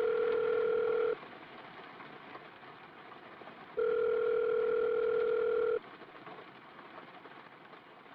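Telephone ringback tone: a steady low tone sounds briefly, stops, then sounds again for about two seconds.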